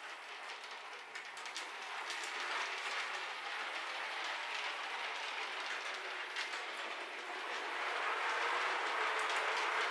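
O scale model tram running along its track: a steady rolling rattle with scattered sharp clicks from the wheels on the rails, growing gradually louder.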